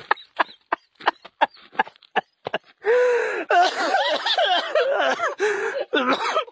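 A person panting in short, quick gasps, about three a second. About three seconds in, a loud, high-pitched wordless voice takes over, wavering up and down.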